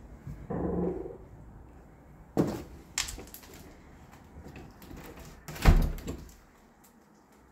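Metal entrance door being handled: a short creak about half a second in, two sharp knocks around two and a half and three seconds, and a heavy thud near six seconds, the loudest sound.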